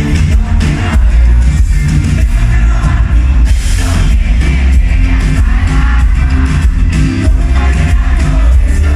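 Live pop band playing loud through a concert PA: a male lead vocal over acoustic guitar, keyboards and heavy bass with a steady beat. About four seconds in, a brief hissing blast from stage CO2 jets.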